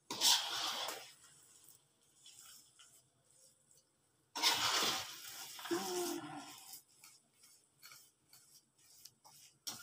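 A metal spoon scraping and folding thick, very sticky rice cake mixture (biko) in a wok. There are two louder scrapes, one right at the start and one about four and a half seconds in, with fainter stirring between them.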